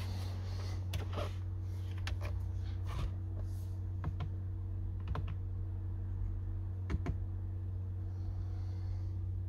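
Scattered sharp plastic clicks, one every second or so, from a BMW i3's iDrive controller being turned and pressed to step through the infotainment menu. A steady low hum runs underneath.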